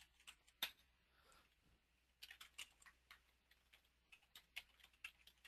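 Faint, irregular keystrokes on a computer keyboard, coming in short runs.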